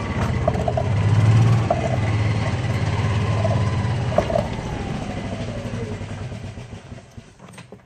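1987 Club Car golf cart's gas engine running under load up a hill without opening up, typical of the bogging the owner blames on carburetor adjustment. The engine sound slowly drops away and fades out near the end.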